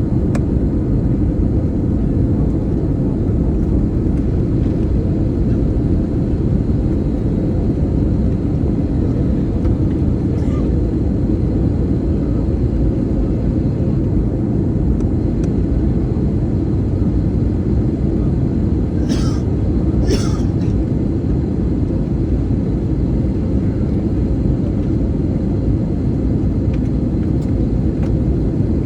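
Steady low roar of an airliner in flight on its approach, engine and airflow noise heard inside the passenger cabin. Two brief higher-pitched sounds come close together about two-thirds of the way through.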